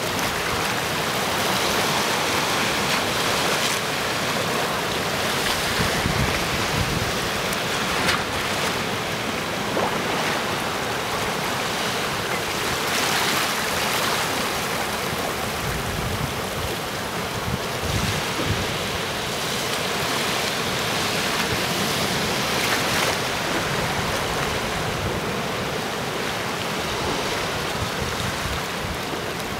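Sea surf washing and splashing among boulders on a rocky shore: a continuous rush of water that swells and eases every few seconds.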